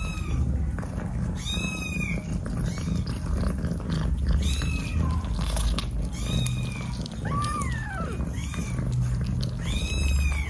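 Kittens mewing repeatedly: short, high, arched cries about once every second or two, one lower rising-and-falling cry near the middle. Under them runs a low, steady rumble from the cats eating.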